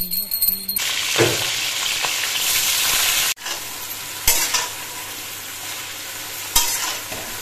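Cauliflower florets sizzling as they fry in hot oil in a kadai, with a steady hiss. A flat metal spatula stirs them and scrapes against the pan a couple of times.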